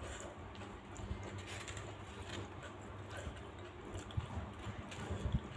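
Plastic cutlery scraping and tapping faintly in a styrofoam takeaway box while scooping up food, with a few low thumps near the end.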